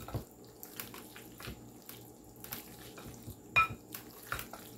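A spoon clicking and scraping against a glass mixing bowl while a thick chicken and vegetable mixture is stirred. One sharp knock about three and a half seconds in leaves the glass briefly ringing.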